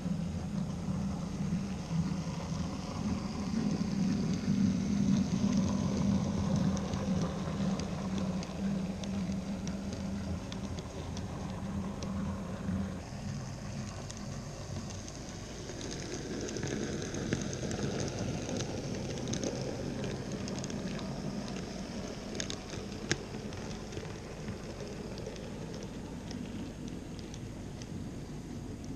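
N-scale model train running on the layout: a steady low motor hum, loudest in the first half, then a rougher rolling noise of small wheels on the track with faint clicks.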